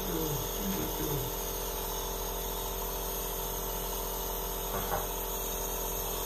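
Compressor nebulizer running with a steady mechanical hum, several fixed tones over an even hiss. There are short voice-like sounds in the first second or so and a brief knock near five seconds.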